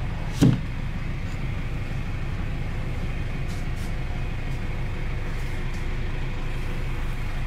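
GAZelle Next minibus engine idling steadily, heard from inside the passenger cabin, with a single sharp knock about half a second in.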